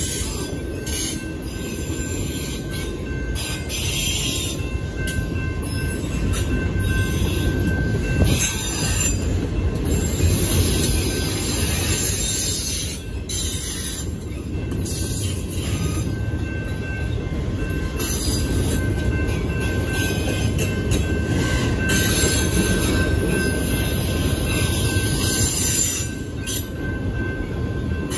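Freight train of autorack cars rolling past at a grade crossing: a continuous low rumble of wheels on rail, with high-pitched wheel squeal that comes and goes.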